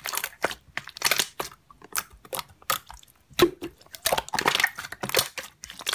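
Slime being squished and pressed by hand, giving an irregular run of crackling clicks and small pops.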